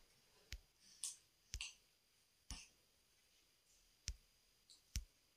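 Near silence broken by about six faint, sharp clicks at irregular intervals, with a couple of soft hisses about a second in.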